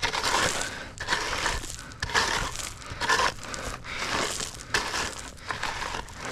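A hand tool scraping and crunching through rocky subgrade soil in repeated strokes, roughly one a second.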